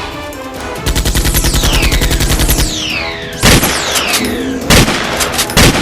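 Movie-style gunfire sound effects: a rapid automatic burst of about two seconds, with falling whistling tones sweeping down over it, then three loud single shots.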